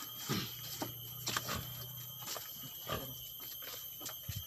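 Wood being chopped with a hand blade: about seven sharp knocks and taps at an uneven pace, over a steady low hum.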